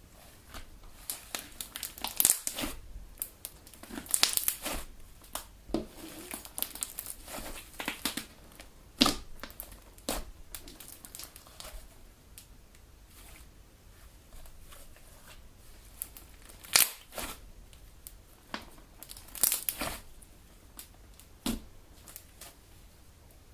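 Homemade Elmer's Galaxy slime being kneaded, stretched and squeezed close to the microphone, giving irregular sticky clicks, pops and crackles. The loudest pops come about 2, 9, 17 and 19 seconds in, with a quieter patch in the middle.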